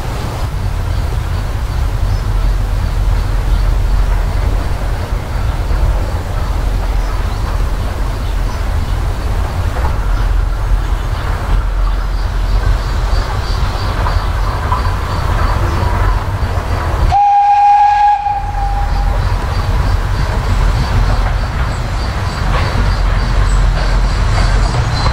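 Industrial steam locomotive approaching with a coal train, heard over a steady low rumble. About 17 seconds in it gives one short whistle blast, about a second long.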